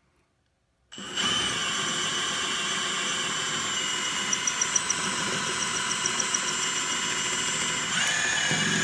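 Electric power drill with a masonry bit boring an anchor hole through floor tile, its motor whining steadily. It starts about a second in and its pitch shifts slightly near the end.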